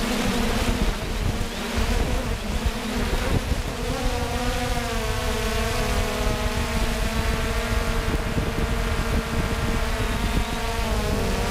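3DR Solo quadcopter's motors and propellers buzzing, picked up by the GoPro on the drone itself: a steady low hum with higher tones that waver and shift in pitch from about four seconds in, over a rough rumble of wind on the microphone.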